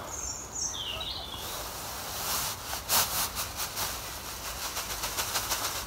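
Plastic bag of grass cuttings rustling and crinkling as it is emptied onto a litter heap, a string of short crackles from about two and a half seconds in. A couple of short high chirps come about a second in.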